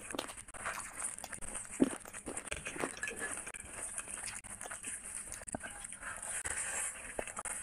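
Close-miked hand-eating sounds: fingers tearing chicken and squishing curry-soaked rice on a glass plate, and wet chewing and lip smacking, as a run of short irregular clicks with one sharper click about two seconds in.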